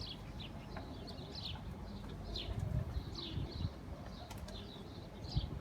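Birds chirping: short high chirps repeating two or three times a second, with a few soft low thumps in the middle.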